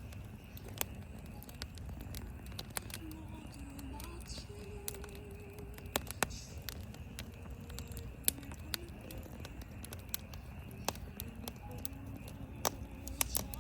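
Wood campfire burning, with irregular sharp pops and crackles every second or so over a low steady hiss of the flames.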